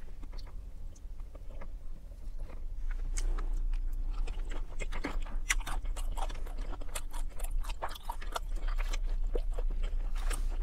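Close-miked chewing and mouth smacks while eating pasta with shrimp and lettuce salad, an irregular run of wet clicks with soft crunches.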